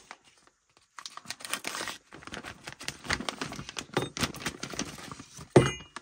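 Clear plastic parts bag crinkling and rustling as it is handled and pulled open, starting about a second in, with a louder burst of rustling near the end.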